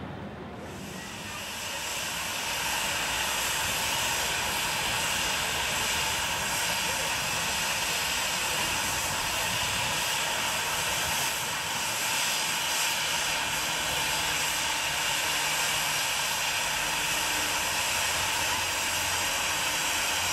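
Small park-railway steam locomotive letting off steam: a steady hiss that starts about half a second in, swells over the next couple of seconds and then holds level.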